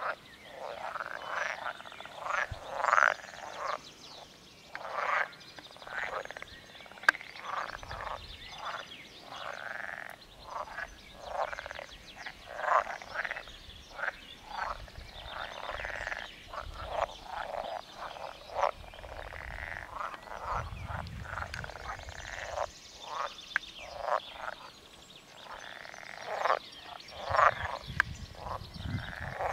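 A chorus of many green pond frogs croaking, short calls from different frogs overlapping and following one another several times a second without a break.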